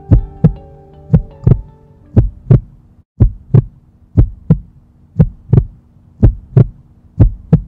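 Heartbeat sound effect, a double thump about once a second, over a low sustained synth drone. The drone breaks off briefly about three seconds in and comes back lower.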